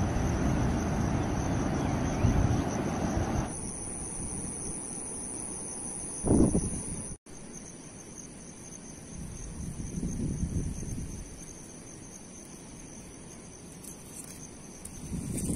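Insects chirring in a steady high-pitched whine. Wind rumbles on the microphone at first and drops away abruptly about three seconds in, and a short gust of wind comes near the middle.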